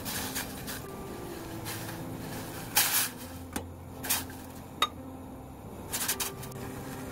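Brown liquid seasoning being poured into a hammered stainless steel saucepan and stirred with a silicone spatula, with a few short splashes and sharp clinks against the pan over a steady low hiss.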